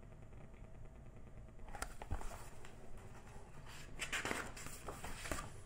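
Paper rustling and a few soft knocks as the pages of a large picture book are turned and the book is handled, starting about two seconds in.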